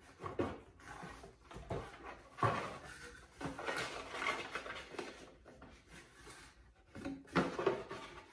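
Cardboard shoebox being handled and rummaged through: irregular rustling and scraping of cardboard and packaging, with a few soft knocks.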